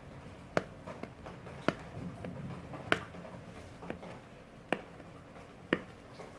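Sharp clicks and small taps from hands working at a sealed smartphone box to open it, five loud clicks at uneven intervals of about a second.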